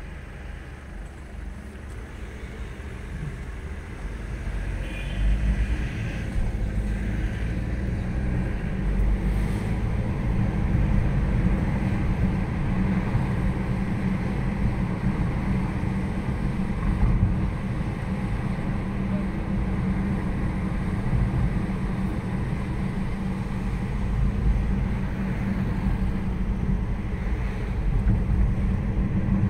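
Car in motion heard from inside the cabin: a steady low rumble of engine and tyres on the road that grows louder over the first few seconds as the car pulls away from a stop, then holds steady while it cruises.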